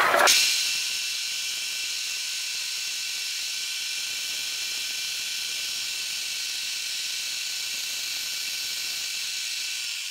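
Milling machine spindle at 2000 RPM driving a two-flute carbide high-spiral end mill a quarter inch deep through birch veneer plywood: a loud burst as the cutter bites in, then a steady hissing whine of the cut.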